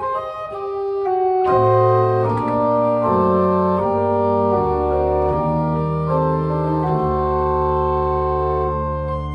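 Church organ playing slow, held chords. About a second and a half in, fuller chords with lower voices come in, and from about halfway a deep bass note is held under the changing chords.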